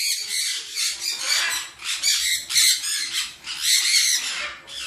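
A roomful of caged conures, mostly sun conures, screeching: harsh, high calls overlapping without a break.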